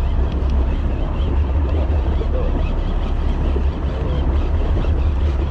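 Charter fishing boat's engine running, a steady low drone.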